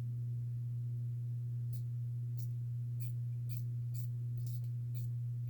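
A steady low hum throughout, with faint small metal clicks about twice a second from roughly two seconds in: the head of a flex-head combination wrench being swung through its detent positions.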